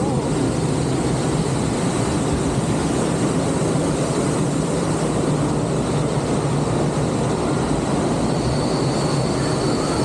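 Steady rushing water noise around a circular rapid river raft as it floats down the channel, with a low hum underneath. A faint high whine comes in about eight and a half seconds in.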